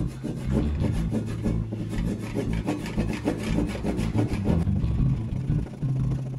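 Japanese-style pull saw cutting wood by hand, flush-trimming a wooden mallet: quick, even rasping strokes, about three or four a second.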